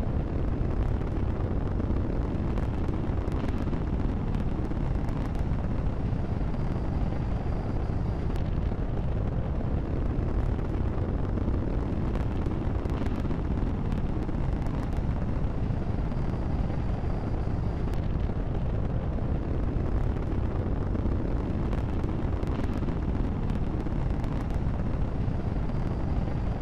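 Missile rocket-motor sound effect: a steady, deep rushing exhaust noise with scattered faint crackles, unchanging throughout.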